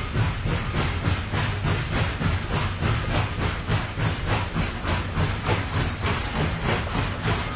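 Steam locomotive chuffing at a steady, quick beat of about four exhaust beats a second, with hiss.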